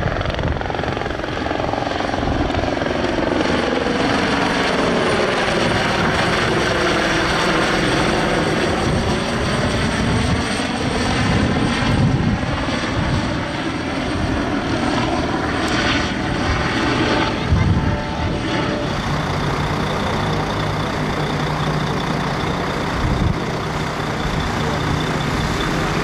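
Light helicopter flying overhead, its rotor and engine sound sweeping down and back up in pitch as it passes. In the last third a steadier low engine hum takes over.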